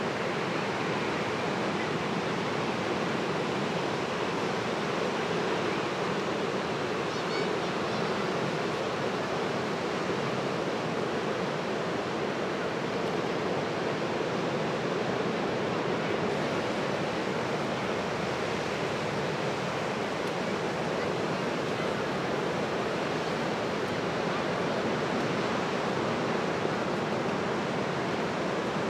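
Steady wash of ocean surf breaking on the beach, an even rushing noise without pauses.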